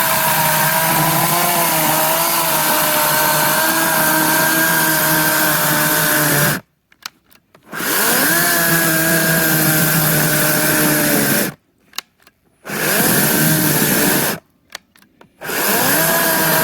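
Cordless 40-volt electric chainsaw motor whining as it cuts into a log thicker than its bar. It runs in four stretches. Each time it starts, the pitch climbs quickly and then sags under load, and three times the motor cuts off suddenly as the bar binds and the saw's built-in protection stops it.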